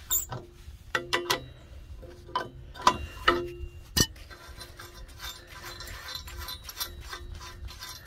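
Ratchet wrench working the bolts of a steel mounting bracket: scattered metallic clicks and knocks with a brief ring of metal, a sharp clank about four seconds in, then a fast, even run of ratchet clicks.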